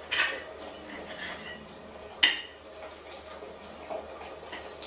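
A few sharp clinks and knocks of household objects over a quiet room, the loudest a little over two seconds in.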